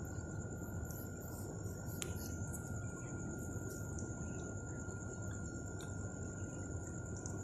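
Steady night ambience: a constant high-pitched drone of night insects over a low background rumble, with a few faint clicks.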